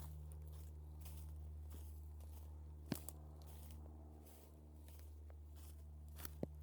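Footsteps crunching through dry vegetation, with a couple of sharp clicks (about three seconds in and near the end) over a steady low hum.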